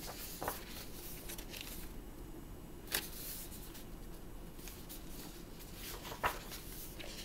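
Pages of a paper painting book being turned and handled, with a few short, sharp rustles or taps spaced a few seconds apart over faint room noise.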